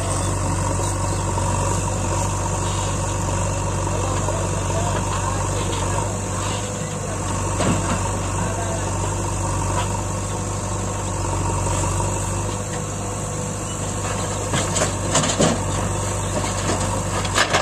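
Diesel engines of a Mahindra 575 DI tractor and a JCB backhoe loader running steadily at low revs. A few knocks come near the end as the backhoe handles rocks.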